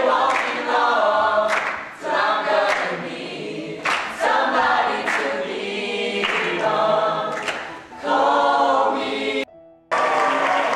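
A choir singing in phrases of a second or two. It cuts off suddenly about nine and a half seconds in, and applause starts just before the end.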